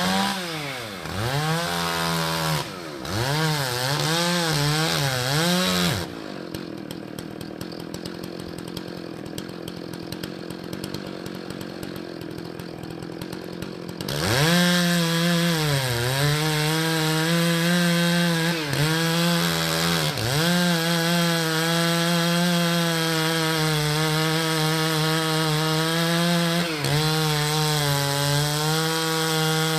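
Two-stroke chainsaw revved in several quick blips, then idling for several seconds. About fourteen seconds in it goes to full throttle and holds a steady high pitch, which dips briefly now and then as the chain bites into the wood.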